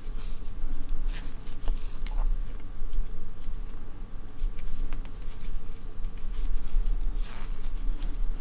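Faint rustling and light scratching of acrylic yarn being drawn through stitches by a crochet hook, in scattered short ticks, over a steady low hum.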